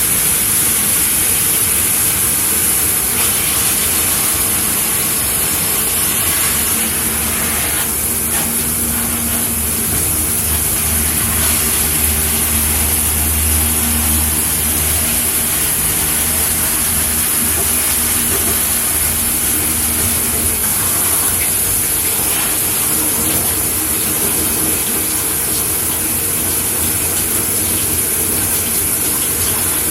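Shower head running steadily, a continuous spray of water with a bright hiss. A low steady hum joins it about seven seconds in and fades out again about two-thirds of the way through.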